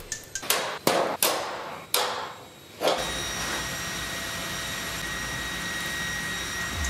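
A few sharp knocks, each with a short ring. After an abrupt change about three seconds in, the steady hum and hiss of running machinery in a ship's engine room, with faint steady tones in it.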